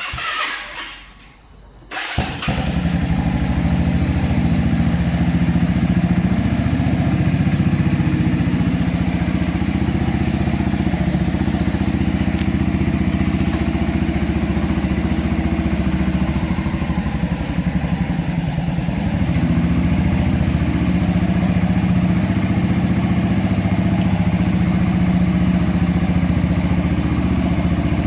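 2001 Yamaha V-Star motorcycle's V-twin engine running steadily, starting about two seconds in after a brief sound.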